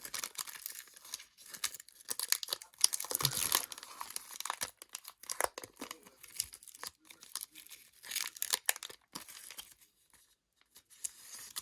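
Foil Pokémon booster pack wrapper being torn open and crinkled in the hands, in irregular clusters of crackling, with a soft bump about three seconds in.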